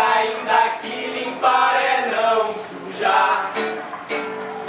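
Acoustic guitar strummed while several men sing together, the last phrases of a song, which comes to an end near the close.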